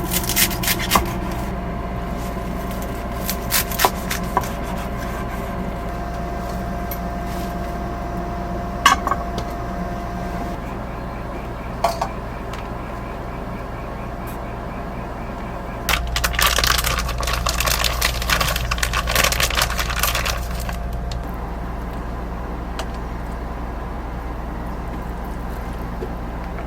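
Scattered sharp clinks and knocks of small hard objects being handled, then about four seconds of denser clattering, over a steady low hum.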